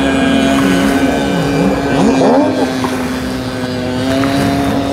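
Motorboat engines on the river: one engine holds a steady drone while another's pitch swings up and down as it speeds past, loudest about two seconds in.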